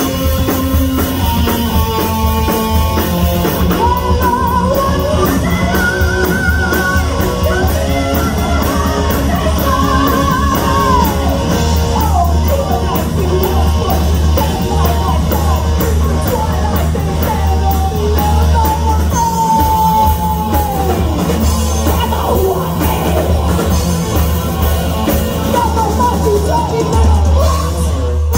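Heavy metal band playing live: distorted electric guitars and a drum kit under a high, wavering lead vocal.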